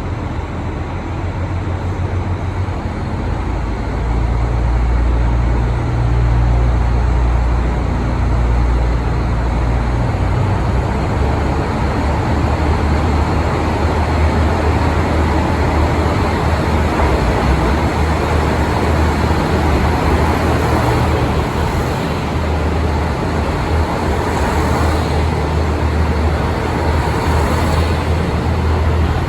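KiHa 183 series diesel train running, a steady loud rumble with a heavy low drone that swells between about four and ten seconds in.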